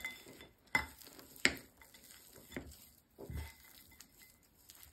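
Metal spoon stirring stiff cookie dough and chopped chocolate in a ceramic bowl: low scraping and squishing with a few short clinks of the spoon against the bowl, roughly a second apart.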